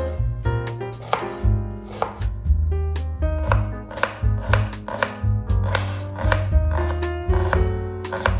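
Knife chopping on a cutting board, a series of sharp, irregularly spaced knocks, over background music with a steady bass line and plucked notes.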